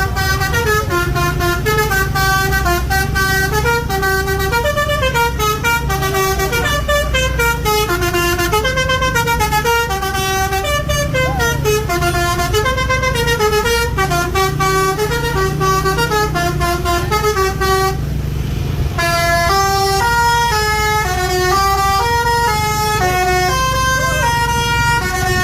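Basuri V3 telolet horn on a bus playing a quick tune of stepped, jumping horn tones, over a steady low rumble. The tune breaks off for about a second roughly two-thirds of the way through, then starts again.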